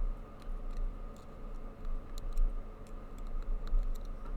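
Lock pick working the pins of a Master Lock Street Cuff bicycle lock: faint, irregular small clicks over low handling rumble.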